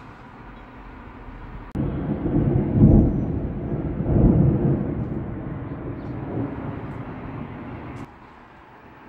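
Thunder rumbling over a steady background hiss. The rumble comes in suddenly about two seconds in, rolls in two swells, fades, and cuts off suddenly near the end.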